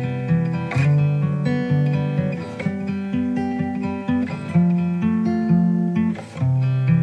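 Instrumental music with plucked guitar: ringing chords over low notes that change every second or so, with no singing.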